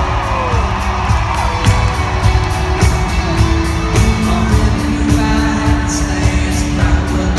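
Live band music played loud in an arena, with singing and a steady beat, and held notes coming in about halfway through; crowd cheering mixes in.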